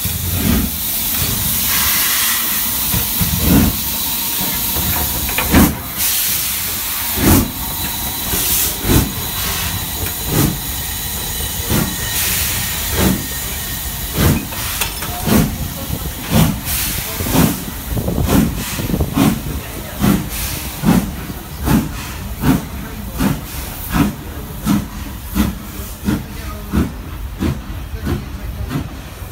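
Steam locomotive pulling away from the platform: a loud hiss of steam at first, then exhaust chuffs that start about a second and a half apart and come steadily quicker as it gathers speed.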